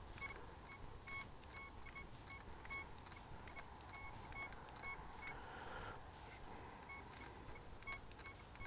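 Desert Gold metal detector giving a run of short, faint high beeps as its coil sweeps over the buried target, with a pause of about a second and a half past the middle: a clear, repeatable target signal at maximum sensitivity. The speaker is taped over with duct tape, which muffles it.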